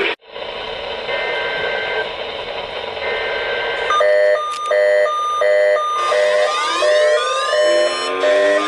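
Radio static hiss, then about four seconds in a pulsing electronic alarm tone starts, beeping about one and a half times a second. From about six seconds in it is joined by a siren winding up, its pitch rising.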